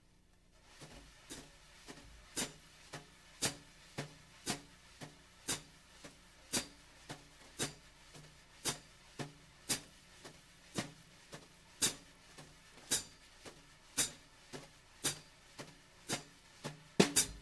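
Wire brushes sweeping continuous counterclockwise circles on a snare drum, one circle per beat. The result is a steady swish with a tap at the top of each circle, about two beats a second, every other beat a little stronger. This is the basic brush time-keeping pattern for a medium tempo, and there is a louder hit just before the end.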